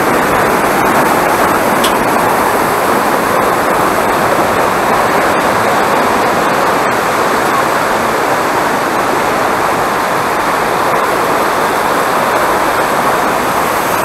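Mountain stream and waterfall rushing over rocks: a loud, steady rush of water.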